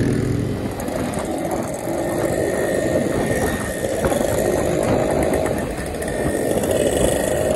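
Motorcycles riding along in a group at road speed, engines running steadily under a continuous rush of riding noise.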